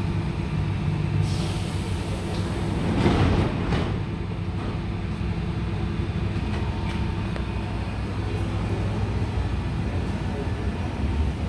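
8th-generation Athens Metro Line 1 electric train standing at the platform with its onboard equipment humming steadily, and a short hiss about three seconds in.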